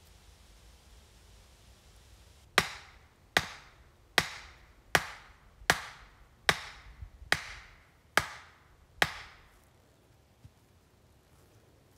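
A wooden stake being driven into the ground by hand: nine sharp blows, about one every 0.8 seconds, each with a brief ringing tail.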